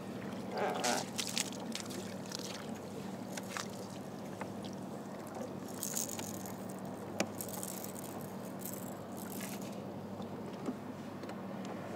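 Water splashing and trickling around a kayak in short bursts, with a few small knocks and a sharp click, over a steady low hum.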